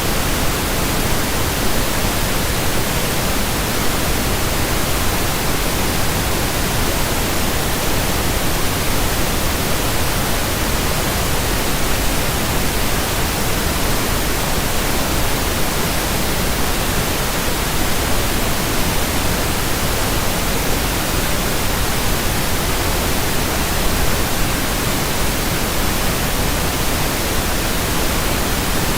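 Steady, unchanging pink noise: an even hiss spread across the whole range, with no events or variation.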